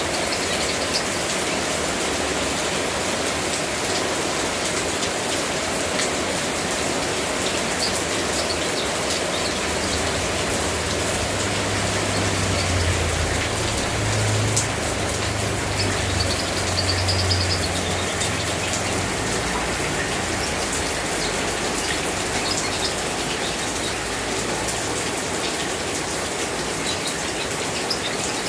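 Steady rain falling, an even hiss of drops on surfaces. A low rumble rises under it for several seconds in the middle, and a few faint, short high chirps come through now and then.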